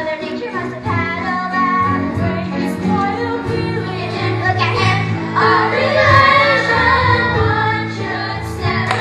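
Children singing a musical-theatre number with instrumental accompaniment, building to a long held final note that ends near the end.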